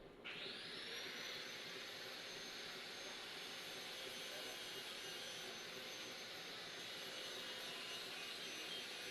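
A small high-speed electric tool or blower switching on, its motor whining up in pitch and then running steadily with a strong hiss of air.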